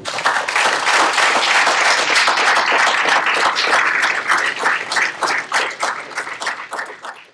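Audience applauding: dense clapping that starts at once, thins into scattered separate claps over the last couple of seconds and dies away.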